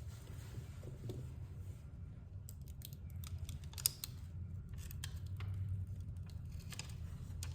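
Light clicks and taps of small repair tools on an iPhone XR's parts during a battery replacement. The clicks come scattered and irregular from about two seconds in, over a steady low hum.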